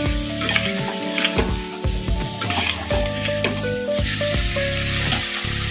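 Vegetables and crab pieces sizzling in hot oil in a kadai, with a spatula stirring and scraping against the pan in scattered clicks.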